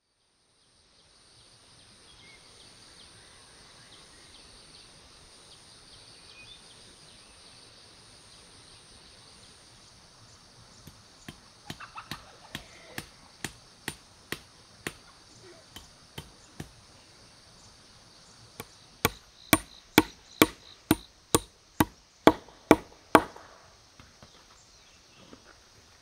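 Sharp strikes of a hand tool on wood, a few scattered at first, then a quick, loud run of about two a second, which stops a few seconds before the end. Under them is a steady high chirring of insects.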